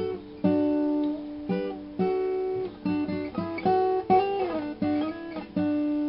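Instrumental music: a plucked string instrument plays a short melody of single notes, some sliding in pitch, and ends on one long ringing note near the end.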